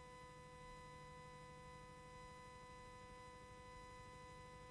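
Near silence: a faint, steady electrical hum with a thin constant tone. No sound of the boat or its engine.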